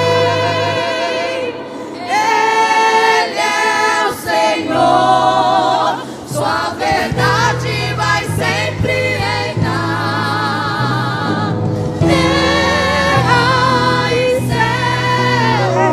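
Women's vocal group singing a gospel praise song in harmony with vibrato, over a steady low instrumental accompaniment.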